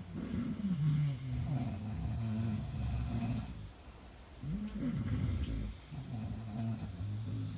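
A sleeping woman snoring: two long, low snores, the second starting about four and a half seconds in after a short pause.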